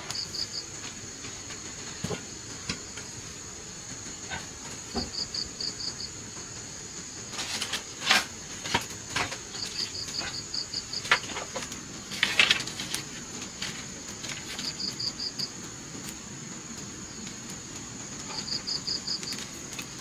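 Insects chirping: a steady high drone, with short runs of rapid pulsed chirps recurring every three to four seconds. Irregular clicks and knocks come through the middle, loudest around eight and twelve seconds in.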